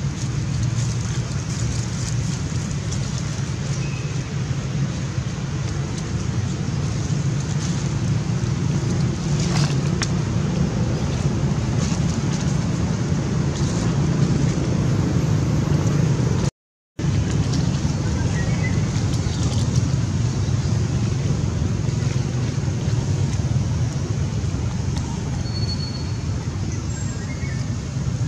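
Steady low rumbling background noise with a few faint, short, high chirps scattered through it. The sound cuts out completely for a moment a little past the middle.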